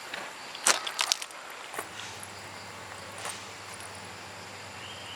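A few sharp wooden knocks and clicks, a cluster about a second in and a softer one a few seconds later, over a steady faint background hiss.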